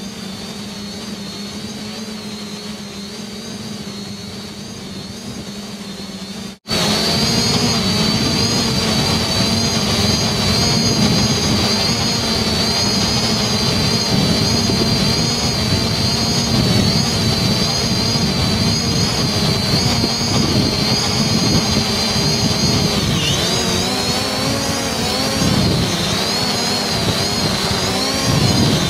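Small multirotor drone's propellers whining steadily, the pitch wavering slightly as the motors adjust. The sound cuts out for an instant about six seconds in and comes back louder, and the whine dips briefly in pitch about three-quarters of the way through.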